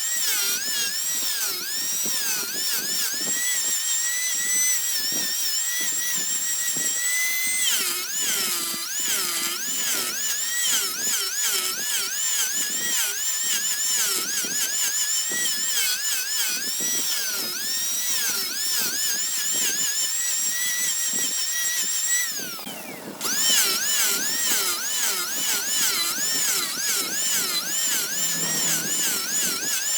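A small high-speed electric power tool with a high-pitched whine, its pitch wavering up and down as it is pressed into work against wood. It stops briefly about two-thirds of the way through, then starts up again.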